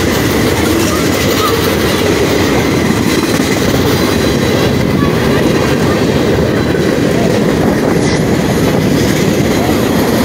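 Freight train's boxcars rolling past at steady speed: a continuous, even rumble and clatter of steel wheels on rail.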